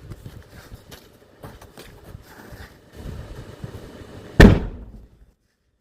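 A balloon walked over a fire bursts with a single loud bang about four and a half seconds in, its echo dying away within a second. Before it, only low wind-like rumble and faint clicks.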